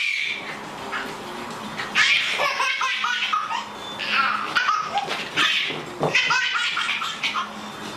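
A baby laughing hard in repeated bursts of giggles and belly laughs, coming every second or so.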